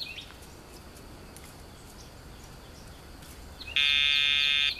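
Dogtra e-collar pager giving one steady electronic buzz, just under a second long, near the end: the pager signal telling the dog to come back toward the handler rather than pull on the leash.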